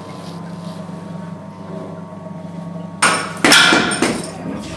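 A steady low hum, then about three seconds in two loud sudden hits of hard objects about half a second apart, with a clattering ring that dies away.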